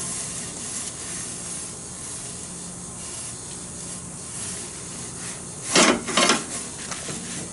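Steady hiss of the pizza oven's gas flame, with a metal turning peel scraping twice against the baking stone a little before and just after six seconds in, as it is worked under a pizza that is stuck to the stone.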